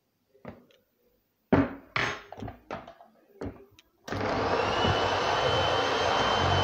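A few knocks and clatters of kitchen utensils being handled, then just after four seconds in a Moulinex electric hand mixer switches on and runs steadily with a thin whine, its beaters whisking a runny egg, sugar and oil mixture in a plastic bowl.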